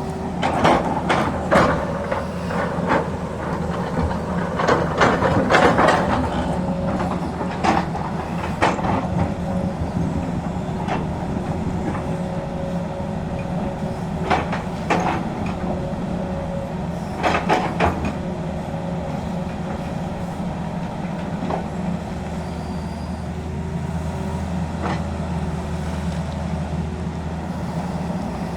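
Tata Hitachi excavator's diesel engine running steadily, with irregular metallic clanks and scrapes from the machine at work, loudest in clusters a few seconds apart.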